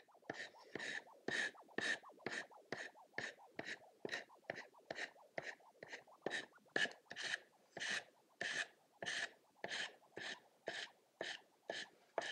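Hand sanding block rubbed over a wooden decoy's repaired bill in short back-and-forth strokes, about two a second, rounding and feathering the bill into a glued-on extra piece of wood.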